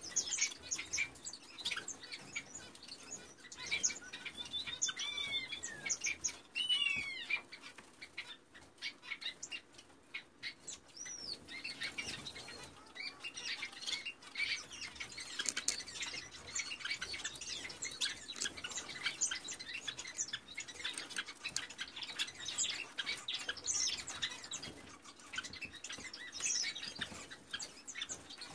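Several finch nestlings close to fledging chirping in the nest, with many short, high calls that bend in pitch, over scratchy rustling and clicks of the nest material.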